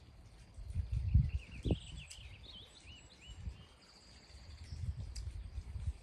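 A songbird singing a run of short, varied whistled notes and quick glides, with a couple of sharp clicks and a briefly held high note near the end of the phrase. Low buffeting rumbles on the microphone come and go underneath, loudest about a second in.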